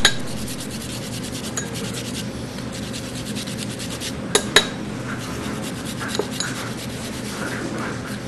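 Fresh horseradish root rasped on a handheld metal grater, a steady run of quick scraping strokes, with a couple of sharp knocks about four and a half seconds in.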